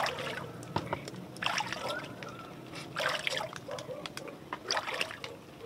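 Shallow river water sloshing and trickling in several short splashes.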